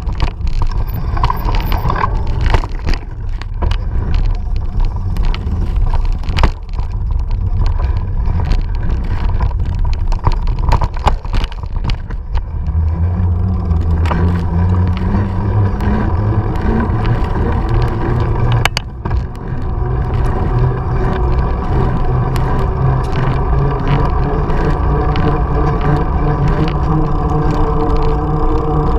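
Mountain bike rolling over a bumpy dirt trail, with many sharp knocks and rattles over a low rumble. About twelve seconds in it runs onto pavement and the tyres set up a steady droning hum.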